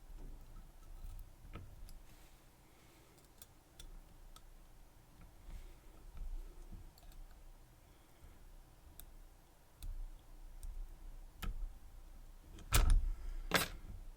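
Faint, scattered metallic clicks of lock picks working the pins of a Yuema 750 padlock, with two much louder clicks just under a second apart near the end.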